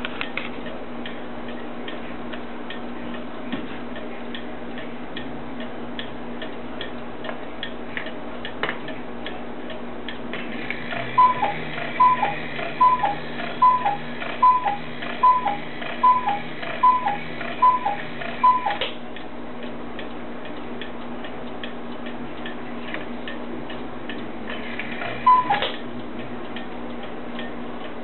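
Mechanical cuckoo clock ticking steadily. Its strike train whirs, and the cuckoo sounds its two-note call, high then lower, ten times, a little under once a second, calling the hour. A single cuckoo call follows near the end.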